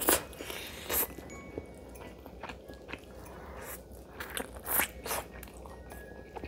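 Close-up eating sounds of sauce-coated fried chicken: crisp crunching bites and wet chewing, with the loudest bites right at the start, about a second in, and a pair near the five-second mark.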